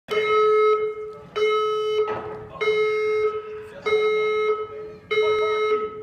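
Fire alarm sounding a steady-pitched electronic tone in even pulses. Each pulse is on for just over half a second, with a gap of the same length, about five times.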